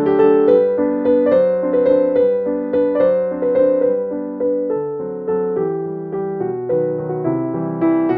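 Background piano music: a gentle melody of steady, evenly paced notes.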